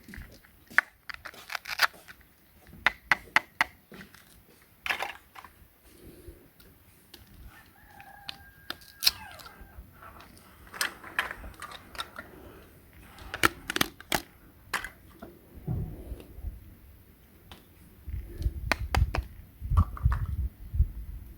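Small objects, likely plastic toy pieces, being handled: an irregular series of sharp clicks and taps, with dull low thumps near the end.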